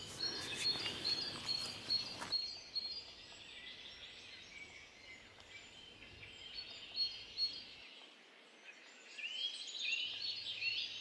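Small birds chirping and singing over faint outdoor background noise, busiest in the first couple of seconds and again near the end, quieter in the middle.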